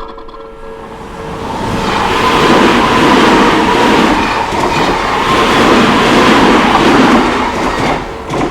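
Odakyu electric commuter train passing over a level crossing: a dense rail noise that builds over about two seconds, stays loud for about six, then drops away. The crossing bell's ringing comes back through near the end.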